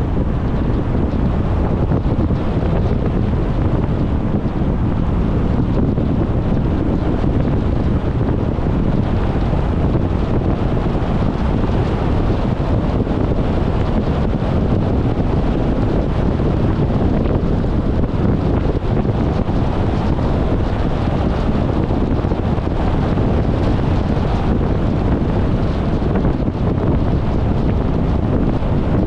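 Steady wind and road noise from a moving car, heavy in the lows and without a break.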